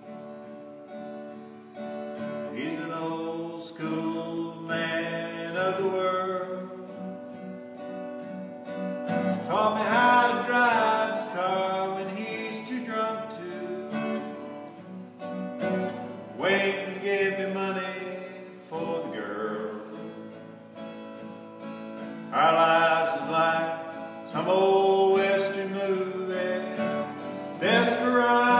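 Acoustic guitar being strummed and picked, chords ringing out, with harder strums every several seconds.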